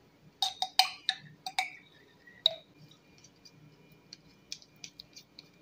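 A metal spoon clinking and tapping against a ceramic bowl and a glass jar while scooping satay paste: a quick run of sharp clicks in the first two seconds, one more at about two and a half seconds, then lighter ticks near the end as the paste is scraped off the spoon with a wooden chopstick.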